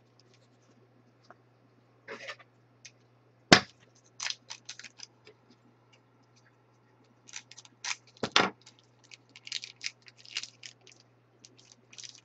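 Scissors cutting open a trading card pack: sharp snips and clicks, the loudest about three and a half seconds in, then a quick run of snips and wrapper crinkling from about seven seconds on.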